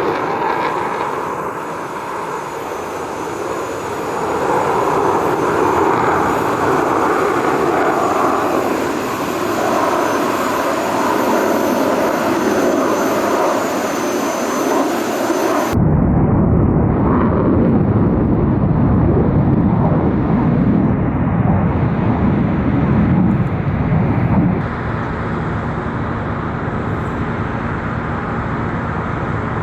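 F-35 fighter jet's single Pratt & Whitney F135 turbofan engine roaring as the jet flies past. About halfway through, the sound cuts abruptly to a deeper, lower rumble of the jet.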